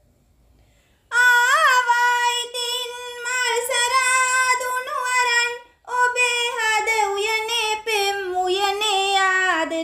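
A high-pitched voice singing a Sinhala song line with no instruments, holding long notes with small pitch slides. It begins about a second in and pauses briefly near the middle.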